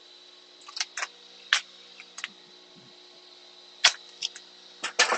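A scattering of short, sharp clicks and taps, about eight in all, the loudest a little under four seconds in and near the end: hands handling the camera cable and tape inside a laser cutter's enclosure. A faint steady hum sits under them.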